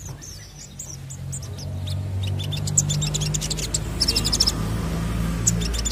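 Olive-backed sunbird (sogon) singing: a few high chirps, then fast high trills of rapidly repeated notes from about two seconds in, with a dense buzzy run around four seconds. A low hum grows louder underneath.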